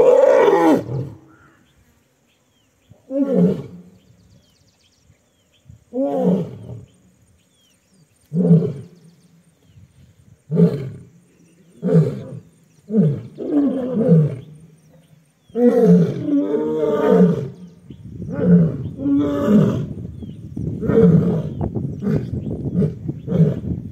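Asiatic lions roaring in a fight. A loud outburst comes at the start, then repeated falling calls every two to three seconds, which come faster and run into each other over the last six seconds.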